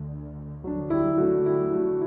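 Calm ambient background music of held notes, with new notes coming in about half a second in and again just before one second.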